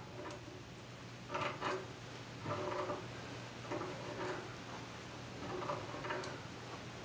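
Faint metallic clicks and scrapes of pliers gripping and turning the brass nut on a boiler sight-glass fitting as it is tightened a little past finger tight. There is a sharper click about six seconds in.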